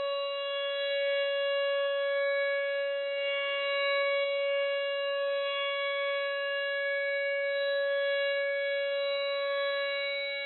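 Civil defense siren sounding a steady, unbroken wail at a constant pitch, the kind of tone used for a nuclear attack alert.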